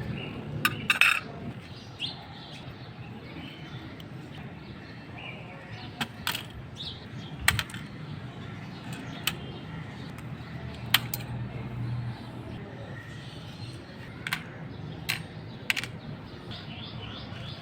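Irregular sharp clicks and light metallic clinks, about ten spread unevenly, of small metal clock parts and tools being handled, over a low steady background hum.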